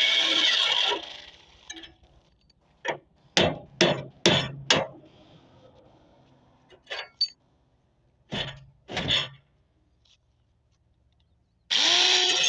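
Hammer blows on metal during a machine repair: five quick strikes, then two pairs of knocks a few seconds apart. Background music plays at the start, then cuts back in near the end.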